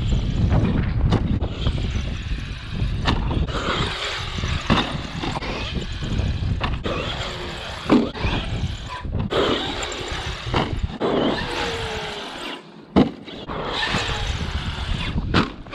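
Traxxas X-Maxx RC monster truck's electric motor whining as it revs up and down, over steady wind noise on the microphone, with two sharp thumps about eight and thirteen seconds in.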